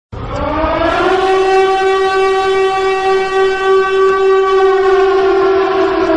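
Fire alarm sounder sounding a wailing siren tone (tone E57, the 'Heulton'), the building evacuation signal: the pitch rises over about the first second, holds steady and loud for about four seconds, then starts to slide down near the end.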